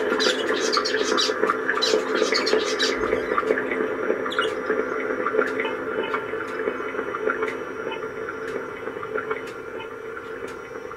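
Electronic drone from an effects-pedal rig: a sustained humming tone with scattered chirps and crackles on top, fading out gradually.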